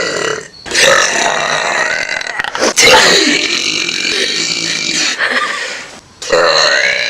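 A person's long, loud burps, one after another with short breaks between, the longest lasting about three seconds.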